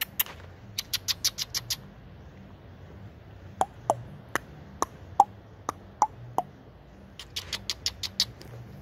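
Animal calling from the trees: quick runs of short, sharp, high chirps, about eight a second, at the start and again near the end, with single, more widely spaced chips in between.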